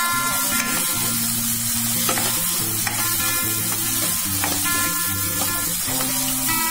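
Thick dry fish masala sizzling in oil in a pan while a spoon stirs it, over steady background music.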